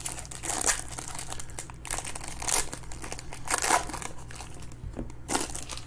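Foil wrapper of a trading-card pack crinkling in several short bursts as hands squeeze, tear open and peel it back.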